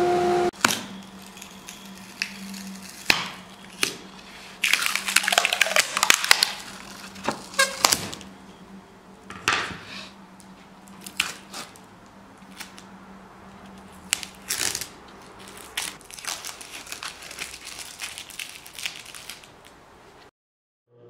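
A steady machine hum cuts off about half a second in. Then comes hand work with a chisel on an oak board: an irregular run of sharp wooden knocks, clicks and cracks, with bouts of crackly scraping around five and eight seconds in.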